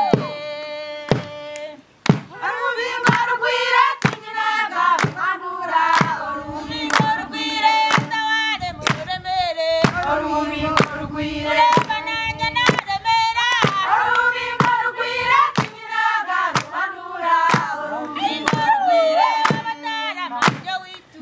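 A group of women singing together, with sharp rhythmic beats from hand claps. After a held note and a short dip, the full singing starts about two seconds in.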